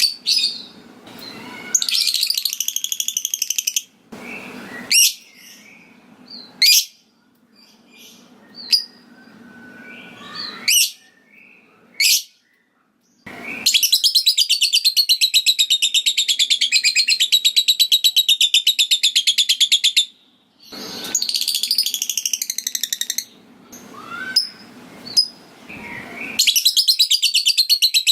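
Lovebird 'ngekek': long, rapid, stuttering chatter calls, four bursts, the longest about six seconds, between single sharp chirps in the first half.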